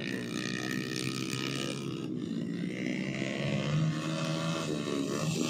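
Motorcycle engines of grain-hauling bikes running through a field, their pitch rising and falling as the riders work the throttle.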